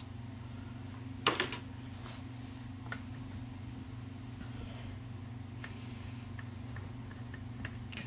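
Screwdriver work on the bare metal frame of an Olivetti Linea 98 typewriter being taken apart: one sharp metallic clack about a second in, then a smaller click and a few faint ticks, over a steady low electrical hum.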